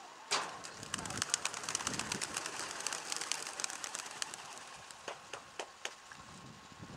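A sharp knock near the start, then a dense clatter of wingbeats as a flock of young racing pigeons bursts out of a transport truck's crates on release, thinning out to scattered wing claps after about four seconds.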